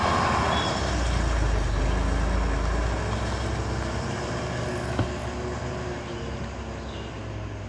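Heavy truck's diesel engine running with a low, steady drone, loudest for the first three seconds and then gradually fading. A short click sounds about five seconds in.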